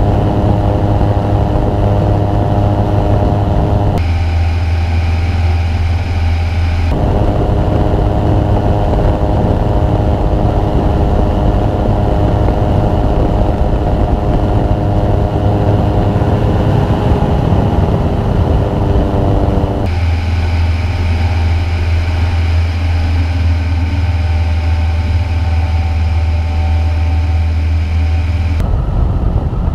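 Engine of a Revo weight-shift trike aircraft running steadily in flight, with wind noise in the microphone. The sound changes abruptly several times, at cuts between camera clips.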